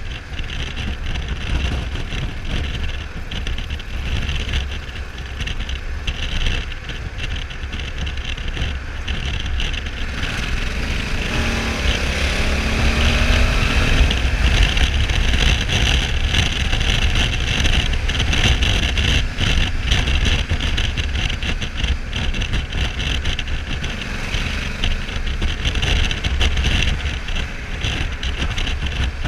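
Honda Africa Twin 1100's parallel-twin engine and heavy wind noise on the microphone while riding at road speed. About eleven seconds in, the engine note rises and gets louder as the bike accelerates hard, then settles into a steady cruise.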